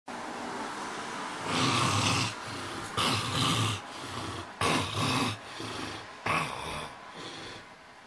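A man snoring heavily in his sleep, mouth open: four loud snores about every second and a half, then a fainter one near the end.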